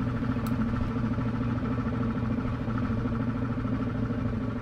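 Royal Enfield Classic 350's 349 cc single-cylinder engine running steadily as the motorcycle rides along.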